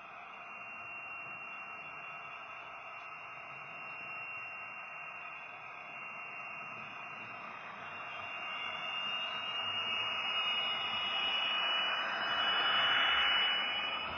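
Model HST power car running on a train-set track, pulling goods wagons: a steady rolling hiss with a thin, high motor whine. It grows louder through the second half and peaks just before the end.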